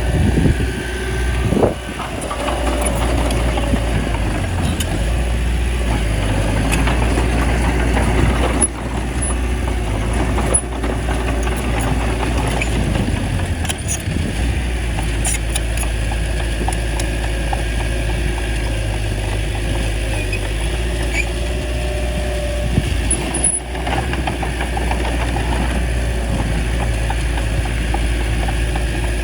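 Bulldozer's diesel engine running steadily under load, with a few short clanks.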